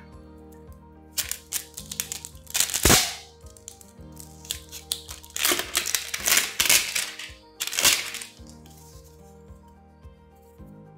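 Paper instruction booklets rustling and crinkling as they are handled, in several loud bursts over the first eight seconds, over quiet background music with sustained tones.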